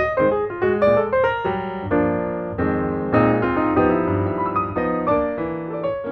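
Piano music: quick notes at first, then slower held chords for the rest.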